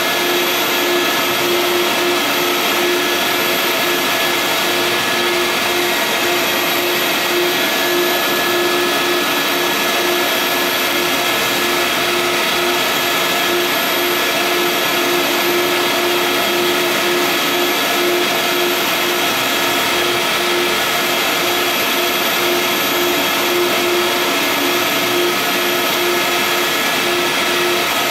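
Vutek flatbed UV-curable inkjet printer running as it prints onto a rigid sign board: a loud, steady machine whir with an evenly pulsing hum under it.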